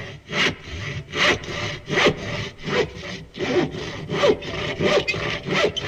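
Rhythmic rasping back-and-forth strokes, like a hand saw cutting wood, at about two to three strokes a second.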